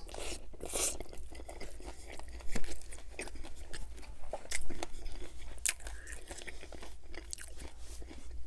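Close-miked chewing of a bite of chicken club sandwich: irregular mouth clicks and smacks, with a couple of louder ones about two and a half and four and a half seconds in.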